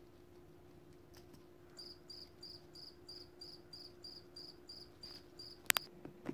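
Cricket chirping, evenly spaced at about three chirps a second, starting about two seconds in and stopping just before the end: the comic 'crickets' cue for an unanswered question. A single sharp click follows near the end.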